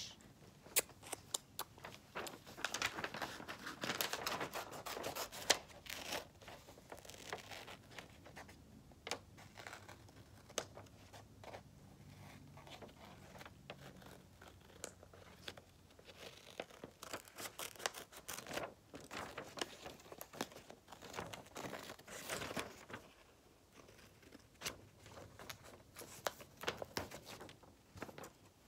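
Paper rustling and crinkling with scissors snipping, as a drawing on a sheet of paper is cut out: a run of short snips and rustles.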